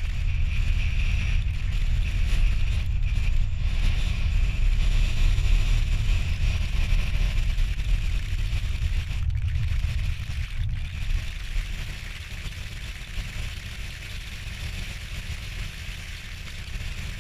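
Low, steady rumbling noise of a moving vehicle, with a fainter hiss above it; it eases off somewhat over the last few seconds.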